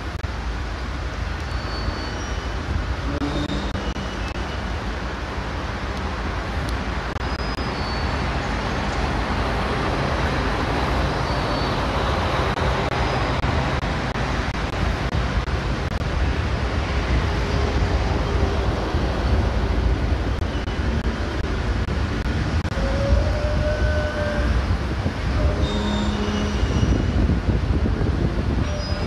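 Steady outdoor rumble of road traffic with low buffeting, swelling in the middle as if a vehicle passes, and a few faint short high chirps scattered through it.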